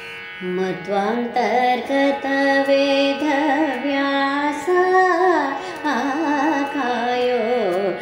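A woman singing a Kannada devotional song in Carnatic style, her voice sliding and ornamenting each held note. A steady drone sounds underneath, already there before her voice comes in about half a second in.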